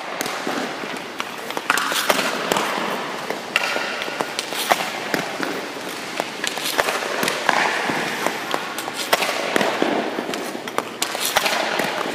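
Ice hockey pucks being shot with a stick: frequent, irregular sharp clacks of stick on puck and of pucks hitting the goalie's pads, the boards and the ice, over a steady noisy rink background.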